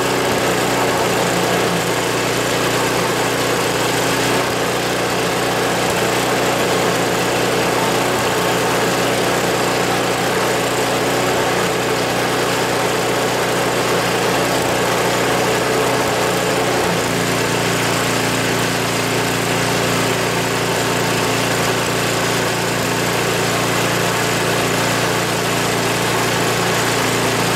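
Tecumseh HSSK40 4 hp four-stroke single-cylinder Snow King engine running steadily while its carburetor is adjusted with a screwdriver. Its note shifts about seventeen seconds in.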